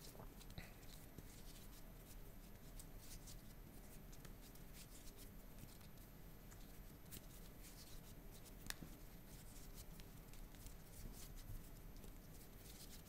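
Near silence: room tone with a few faint scattered ticks, one a little louder about nine seconds in.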